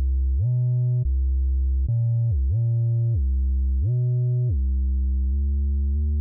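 Deep dubstep synth bass patch from the Native Instruments DropSquad library, holding long notes that glide up and back down between a few pitches, with no drums.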